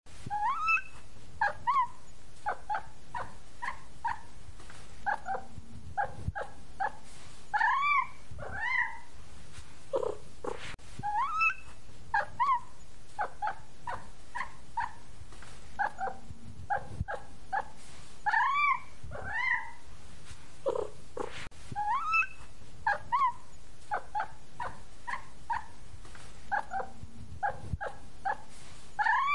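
A kitten mewing over and over: quick short mews, several a second, mixed with longer meows that rise and fall in pitch. The same run of calls recurs about every ten seconds.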